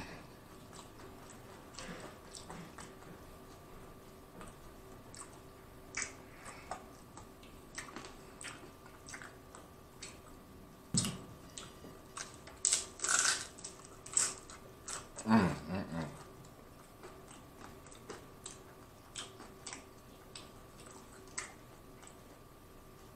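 Close-miked biting and chewing of a crisp hardshell steak taco: scattered crunches, loudest in a cluster of bites about eleven to fourteen seconds in. A short low hum of the voice follows about fifteen seconds in.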